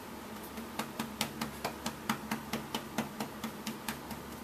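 Quick light pats on a baby's back to bring up a burp: a run of short taps, about four or five a second, uneven in strength.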